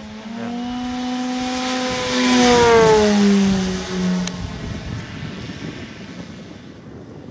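An electric-powered 35% Krill Extra 330SC RC aerobatic plane flies past, with its Turnigy RotoMax electric motor and 27x12 Mejzlik propeller whirring. The tone grows louder, peaks about three seconds in and drops in pitch as the plane passes, then fades away.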